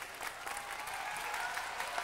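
Studio audience of children and adults applauding, many hands clapping.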